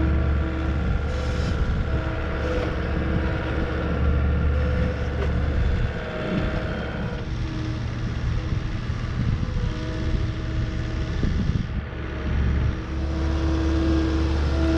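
Gehl skid steer engine running steadily with a whine over its drone. The engine sound dips and picks up again twice, about six seconds in and near twelve seconds, as the throttle or load changes.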